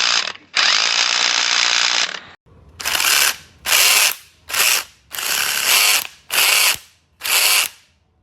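Cordless impact wrench hammering in trigger bursts: two long runs of about a second and a half each, then six short bursts.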